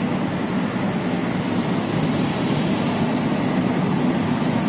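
Steady road noise inside a moving car's cabin: a low, even rumble of tyres and engine while cruising.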